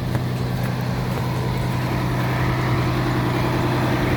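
Fire truck engine idling with a steady hum.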